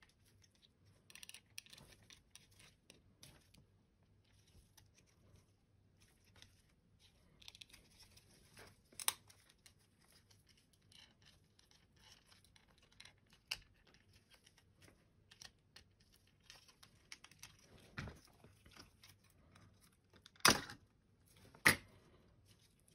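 Plastic snap-fit clips of a Logitech M185 mouse shell being pried apart by hand, with scattered small clicks and scraping of plastic and nitrile gloves. Sharper snaps come about halfway and again twice near the end, as clips release and the top shell comes free.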